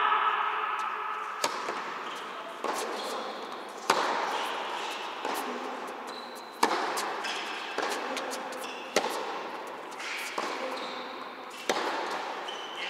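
Tennis rally in a large indoor hall: a tennis ball is struck by rackets and bounces on the court, giving a run of sharp pops about every second and a quarter, each echoing around the hall.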